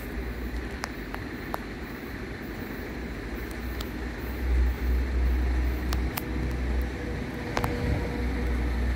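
Two coupled Cantus Stadler FLIRT electric multiple units running past: a heavy low rumble with scattered sharp clicks. The rumble swells about halfway through, and a steady hum joins it in the second half.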